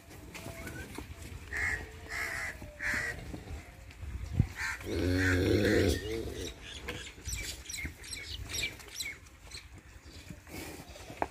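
Crows cawing a few times, then a cow giving a short low moo about five seconds in, with small birds chirping through the later part.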